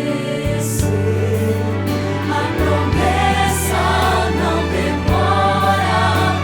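Christian choral music: a choir singing over sustained accompaniment with a steady bass line.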